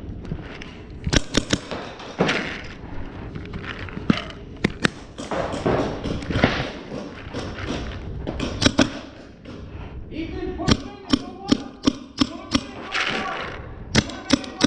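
Paintball markers firing: scattered single shots, then quicker strings of several shots a second from about ten seconds in.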